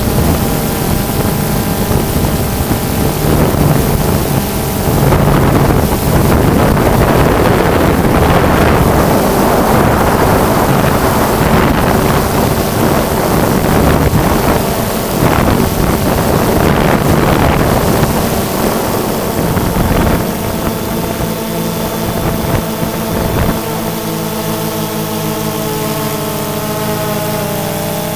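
Quadcopter drone's motors and propellers buzzing steadily, with heavy wind buffeting the onboard microphone. The wind noise eases about twenty seconds in, leaving the motor tones clearer.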